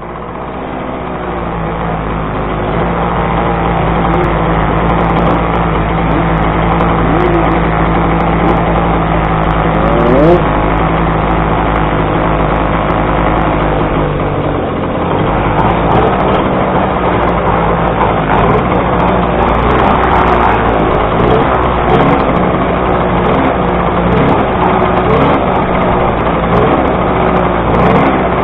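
Small 50cc two-stroke Puch race-bike engines running: one nearby engine holds a steady idle while others around it are revved, with a brief rising rev about ten seconds in.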